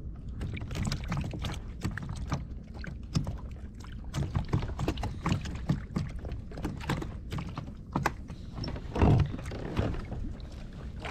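Irregular clicks and knocks on a plastic fishing kayak over a steady low rumble of water and wind, with a louder thump about nine seconds in.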